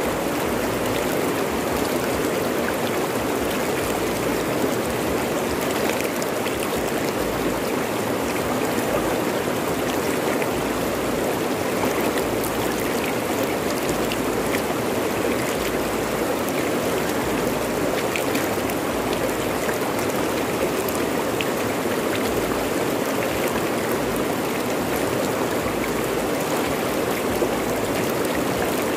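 Fast-flowing river running over rocks: a steady rush of water, with small splashes ticking through it.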